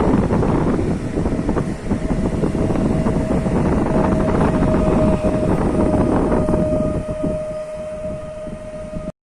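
Train running past on the rails, a loud rumble with wind buffeting the microphone, and a steady high tone held over it from about a second in. The rumble fades near the end before the sound cuts off.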